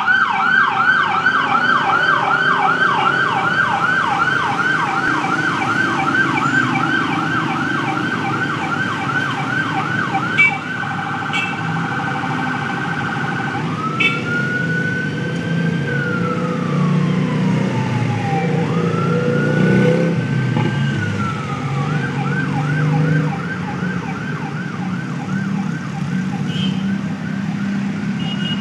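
Electronic siren running through its patterns: a fast yelp of about four sweeps a second, a brief rapid warble between two tones, two slow wails rising and falling, then the fast yelp again. Underneath, the low running of many motorcycle engines passing in procession.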